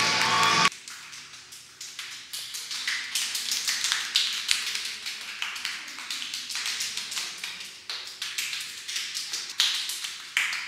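Loud speech over music cuts off abruptly under a second in, followed by rapid, irregular light clicks and taps.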